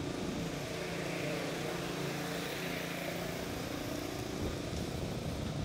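A steady low engine drone.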